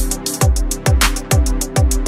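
Background electronic music with a fast beat of deep, pitch-dropping kick drums and hi-hats over held synth notes.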